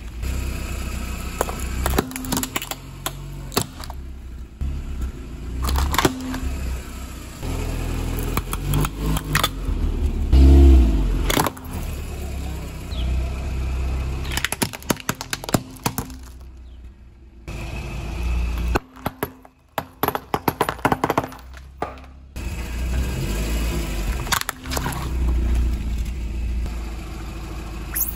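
A car tyre rolling slowly over toys on concrete and crushing them: a run of sharp cracks, snaps and crunches over a low rumble from the car. There are a couple of short quieter gaps between crushes.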